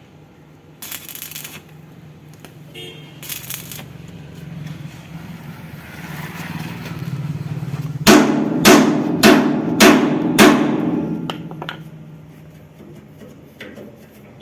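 A hammer striking metal five times, about half a second apart, each blow sharp and ringing, over a low steady hum.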